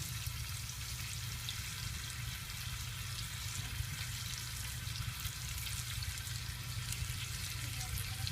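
Onion rings with paprika, garlic and salt frying in oil in a pan: a steady sizzle with small crackles, over a steady low hum.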